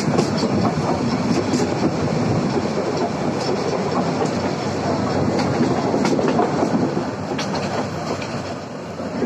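Passenger train running at speed, heard through an open carriage window: a steady rumble of wheels on the rails with scattered faint clicks.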